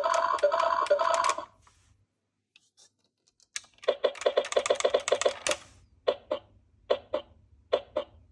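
A toy ambulance's siren sound cuts off about a second and a half in. After a pause, a fast run of light clicks and clacks follows, then three pairs of clicks.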